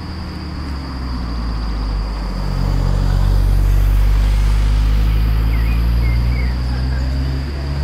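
Motor vehicle engine running at a steady, unchanging pitch, swelling about two seconds in and easing off slightly near the end.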